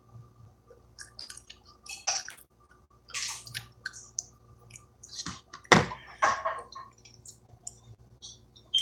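Noodles being slurped and chewed close to the microphone: irregular short slurps and chewing sounds, the loudest about six seconds in.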